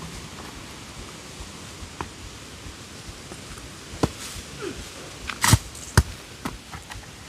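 A few sharp knocks and thuds a second or more apart, the loudest about five and a half seconds in, over a quiet rustling background.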